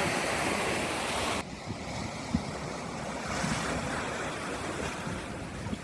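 Ocean surf washing on the beach with wind buffeting the microphone. The high hiss drops off abruptly about a second and a half in, leaving lower rumbling surf with a faint knock or two.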